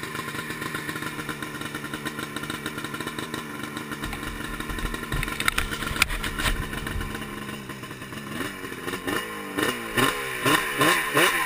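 Snowmobile engine idling steadily, with a single sharp knock about six seconds in. From about eight seconds in it is revved in quick repeated throttle blips, each a rise and fall in pitch, about two a second and getting louder.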